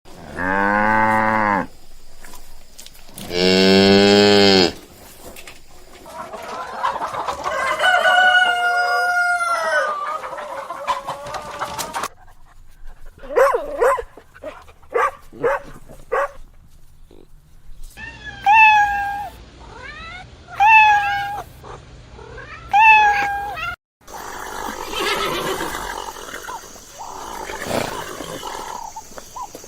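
Farm animal calls one after another, several different animals in turn: two long, low, pitched calls at the start, then a longer call about six seconds in, a run of rapid short calls, a series of repeated higher calls, and a noisier stretch near the end.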